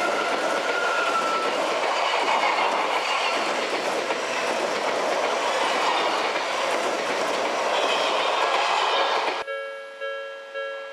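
Odakyu electric train running past, wheels clacking over the rail joints. Near the end it cuts off abruptly to a ringing tone repeated about twice a second.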